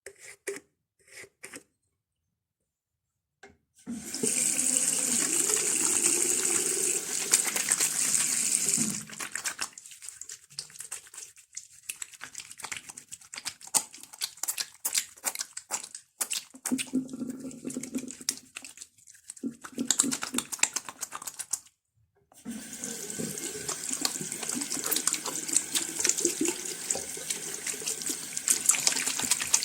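Hands being washed under a running sink tap. The water runs steadily for about five seconds, then gives way to wet rubbing and splashing with short bursts of flow. Near the end the tap runs again with hands splashing in the stream.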